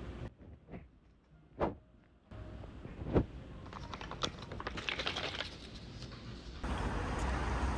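A couple of light knocks on a desk, then the crinkle of a foil drink pouch being picked up and handled. A steady background hiss comes up near the end.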